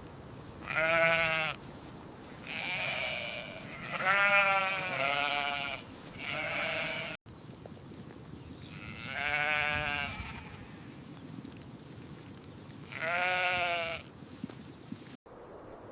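Sheep bleating: about seven quavering calls, each about a second long, a few of them close together near the start and more spread out later.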